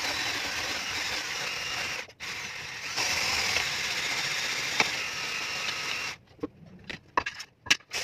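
Electric hand blender beating waffle batter in a plastic jug. It runs in two spells with a brief break about two seconds in, then is switched off about six seconds in, followed by a few knocks.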